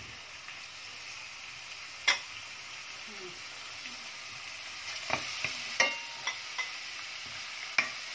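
Ram meat sizzling as it browns in a little oil in a pot, a steady hiss that grows slightly. A wooden spatula knocks against the pot about seven times, loudest about two seconds in and near six seconds.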